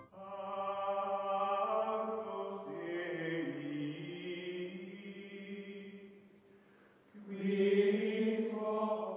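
Outro music: sustained choral chords like a wordless chant, one long chord that fades away about six and a half seconds in, then a second, louder chord swelling in about a second later.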